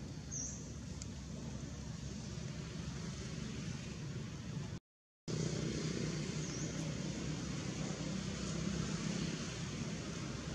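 Steady background noise with a low hum, cut by a half-second silent gap about five seconds in, after which it returns a little louder.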